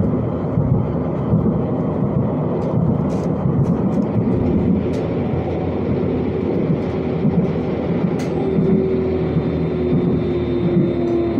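Hyundai Rotem 142N low-floor tram running, heard from inside the passenger cabin: a steady rumble of wheels on rails with a few sharp clicks. About eight seconds in a whine comes in and slowly sinks in pitch.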